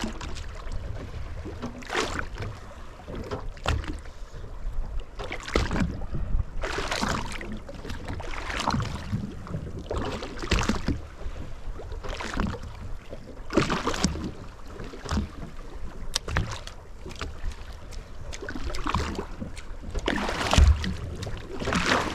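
Water slapping and sloshing against the hull of a drifting boat, with irregular splashes every second or two over a low rumble.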